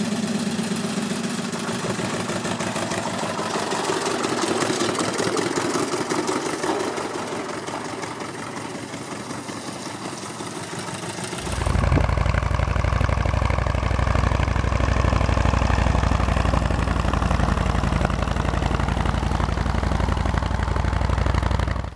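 Turner Yeoman of England tractor's four-stroke V4 diesel engine running. About eleven seconds in, the sound changes to a louder and deeper engine note.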